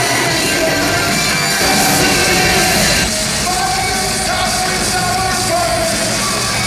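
Loud rock music with a sung vocal line.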